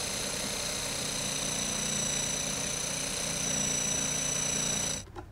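Electric jigsaw cutting the sink cut-out through a laminate benchtop: a steady motor run with a high whine, cutting off suddenly about five seconds in.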